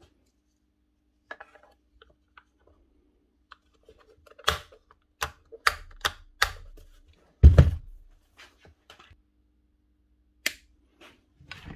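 Hard plastic clicks and knocks as a cover is fitted back onto the housing of a Bosch GSH4 demolition hammer and the hammer is handled, with one heavy thump about seven and a half seconds in.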